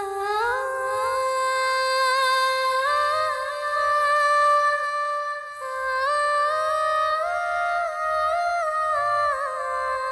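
A wordless hummed melody, one voice sliding up and then stepping between held notes, as the unaccompanied intro of a Kannada film song.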